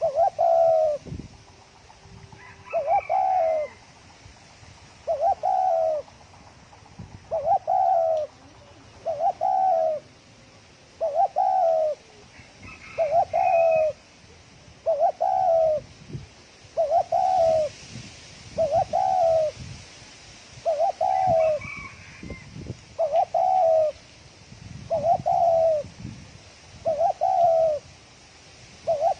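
Spotted dove cooing fast: a short, low coo phrase repeated about every two seconds, in the quick 'thổ còi' calling style that keepers use to stir up other doves. A few faint, higher chirps from a small bird come in now and then.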